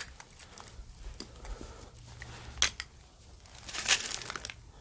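Close rustling and crinkling handling noise from a gloved hand and fleece sleeve moving over dry dirt, pebbles and bones. There are a few sharp clicks, and a longer scratchy rustle comes about four seconds in.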